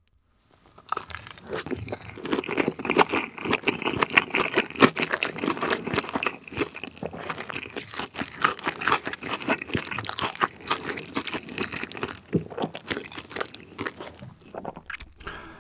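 Close-miked chewing of a piece of potato-crusted hot dog soaked in spicy tteokbokki sauce: dense, wet crunching that starts about a second in and goes on irregularly, easing near the end.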